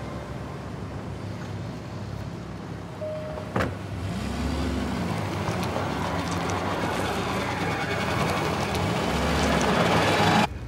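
Range Rover SUV driving off on gravel: engine running and picking up, tyre noise growing louder, then cutting off abruptly near the end. A single thump about three and a half seconds in.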